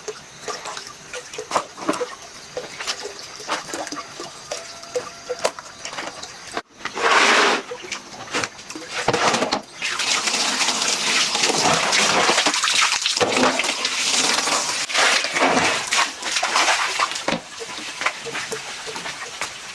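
Water splashing and sloshing, with many small splashes: scattered at first, then a dense, steady rush of splashing from about halfway in.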